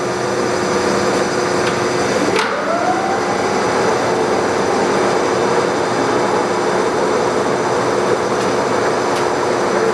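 Monarch Series 90 heavy-duty Dyna-Shift lathe running under power with its spindle at 220 RPM, a steady hum of motor and headstock gearing. About two and a half seconds in, a click is followed by a rising whine that levels off and keeps going.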